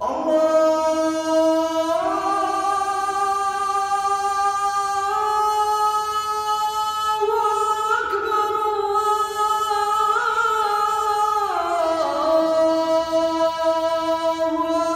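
A man chanting the adhan, the Muslim call to prayer, in one long drawn-out phrase. The pitch climbs in steps, is held high, and falls back to the opening note about three-quarters of the way through.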